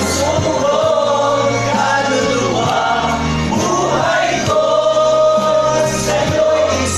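A group of men and women singing together as a choir, holding long sung notes over a steady low accompaniment.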